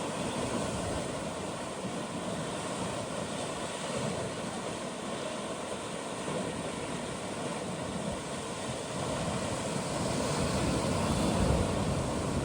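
Atlantic surf washing among coastal rocks: a steady rush of breaking water that swells louder about ten seconds in.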